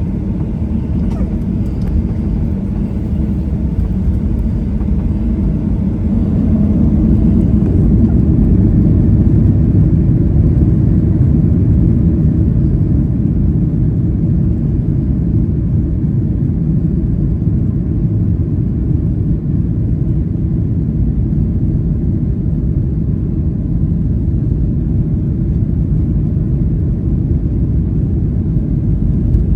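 Boeing 737-800 cabin noise: a steady low rumble of the engines and airflow heard from inside the cabin. It grows a little louder about six seconds in, then settles.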